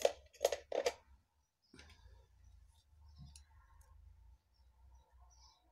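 Small metal jewellery findings and pliers being handled on a wooden table: a few sharp clicks and light knocks in the first second, then faint scattered ticks.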